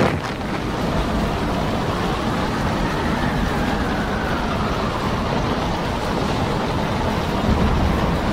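Gale-force wind blowing steadily across a ship at sea in a storm, a loud rushing with a low rumble under it. A faint whistle slowly falls in pitch in the middle.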